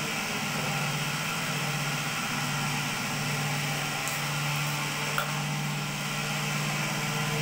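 Cotton candy machine running: a steady motor hum under an even hiss, with one faint click about five seconds in.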